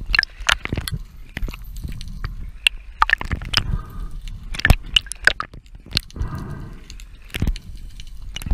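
Irregular sharp clicks and cracks heard underwater over a low rumble of water noise, with a short bubbling gurgle twice.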